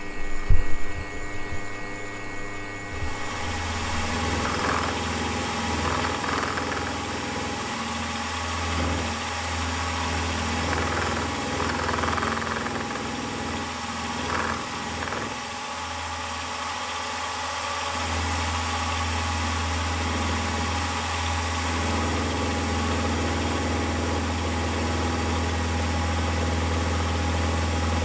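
Milling machine running, its end mill (slot drill) cutting a recess into a steel flywheel, with a few knocks near the start. From about three seconds in there is a steady motor hum with cutting noise that comes and goes.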